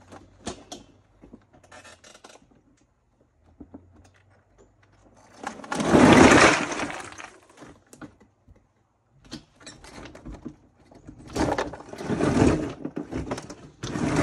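A load of quarry-tailing stones sliding and tumbling out of a tipped Gorilla Cart dump cart onto a rock pile, a loud rush of clattering rock about six seconds in. Near the end comes a second stretch of rattling and clattering as the emptied cart is righted and pulled back over the stones.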